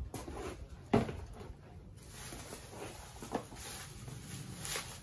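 A thump about a second in as a plastic tub of weeds is set down on a concrete floor, then fresh green weeds rustling as they are pushed by hand into a stone mortar, with a light knock partway through.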